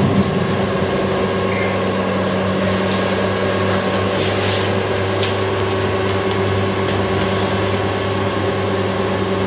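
Steady electric hum of a small motorised device, with a few faint ticks partway through.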